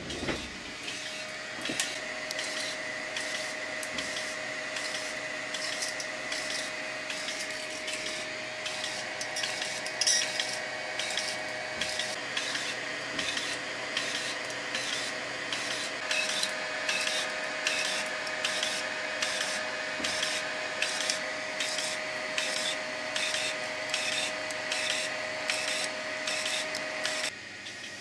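3D printer extruder's stepper motor repeatedly retracting filament and driving it back in, in a rapid retraction stress test. It makes a rhythmic pulsing several times a second over a steady high whine, and cuts off shortly before the end.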